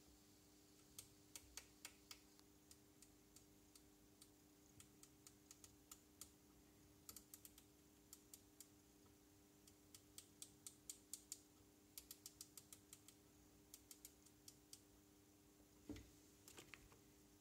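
Faint sharp clicks in quick irregular runs, over a quiet steady hum, with a soft knock near the end.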